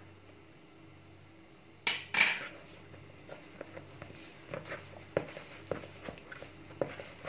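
A metal spoon knocks sharply twice against a mixing bowl, then soft irregular knocks and thuds as sticky dough is worked and pressed by hand in the bowl.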